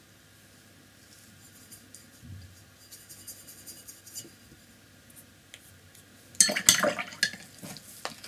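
A round paintbrush faintly stirring gouache and water on a plate palette. About six seconds in, a short burst of loud clinking and rattling as the brush is knocked against something hard, followed by a few lighter ticks.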